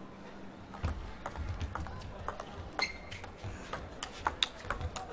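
Table tennis rally: the ball clicking sharply off the bats and the table in a quick, irregular run of hits, starting about a second in.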